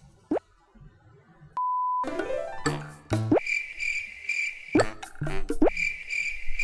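Edited-in comedy sound effects: a quick rising pop, a short beep about one and a half seconds in, a brief snatch of music, then a steady cricket-chirping effect from about three seconds in, broken by more quick rising pops.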